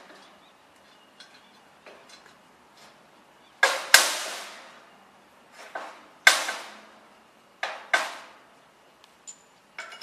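Sharp metal-on-metal knocks and clinks with a brief ring after each, the loudest about four and six seconds in, from steel parts of a scooter rack's hitch assembly being handled as a bolt is fitted through the bracket.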